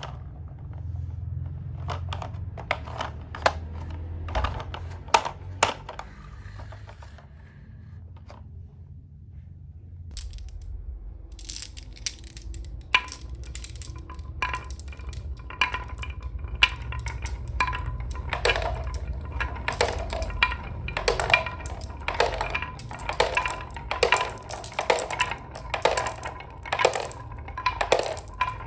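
Marbles clicking and clattering as they roll and knock down a wooden HABA marble run: a fast run of sharp clicks that thins out briefly near the middle, then comes back denser, with a light ringing under the later clicks.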